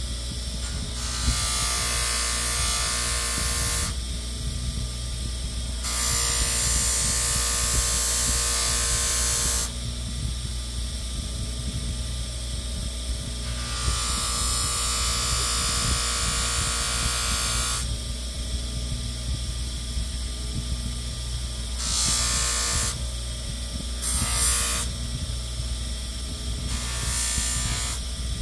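A power tool's motor running steadily while the steel knife blade is pressed against it in passes of a few seconds, each pass a loud grinding hiss that stops when the blade is lifted away: six passes, the last three short.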